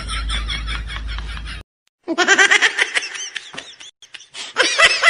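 High-pitched, rapid giggling laughter that cuts off suddenly about a second and a half in, drops to dead silence for half a second, then starts again with a second run of shrill giggles rising and falling in pitch.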